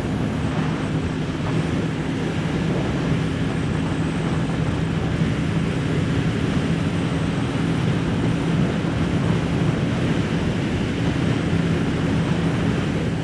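Kawasaki Ninja 650's parallel-twin engine running at a steady highway cruise, its note held level, under a steady rush of wind and road noise.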